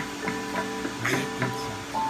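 Background music: a light tune of plucked, guitar-like notes.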